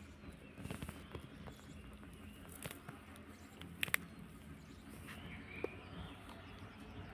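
Faint scuffling and small clicks of young rabbits shifting about and nibbling grass in a plastic basket, with a couple of sharper clicks just before four seconds in.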